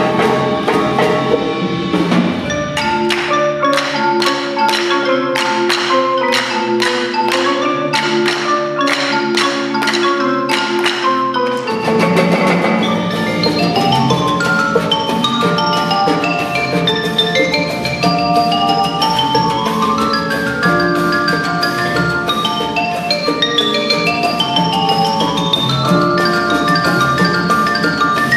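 Percussion ensemble of marimbas, xylophones and other mallet keyboards playing. For the first part the low end drops out, leaving held chords cut by sharp accents about twice a second. About twelve seconds in, the full ensemble comes back in with rising and falling mallet runs over the drums.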